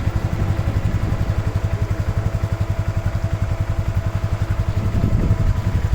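ATV engine running steadily with a fast, even putter.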